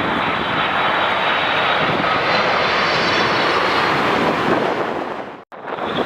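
Boeing 787 jetliner on landing approach passing close by: steady jet engine noise with a high fan whine, the whine's tones sweeping in pitch around the middle as it goes over. The sound cuts off abruptly near the end.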